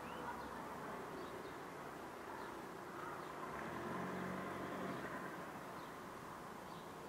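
Outdoor street ambience: a car passes by, its engine hum swelling about four seconds in and fading again, with faint bird chirps.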